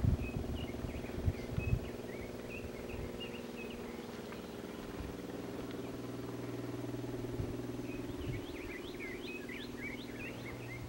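Small birds chirping in two flurries of short, high twitters, one near the start and one near the end, over a steady low engine-like hum. A few soft thumps sound in the first couple of seconds.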